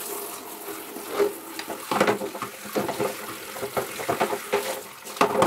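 Water running from a handheld shower head over plastic feeding dishes in a plastic basin, a steady splashing hiss, with irregular knocks and clatters as the dishes are handled and rinsed.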